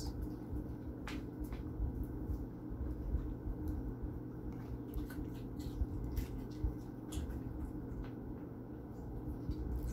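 A dog chewing a piece of raw carrot: faint, scattered crunching clicks over a steady low room hum.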